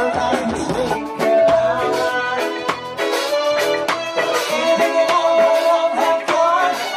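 Live band playing, with drums, guitars and horns; a long held note runs through most of it over regular drum hits.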